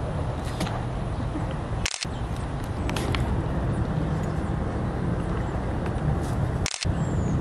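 Steady low outdoor rumble, like distant traffic and wind, with a sharp click about two seconds in and another near the end.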